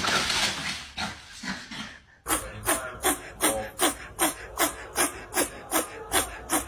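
Hairless Sphynx kitten meowing over and over, a short call falling in pitch about two and a half times a second, starting after about two seconds of indistinct noise.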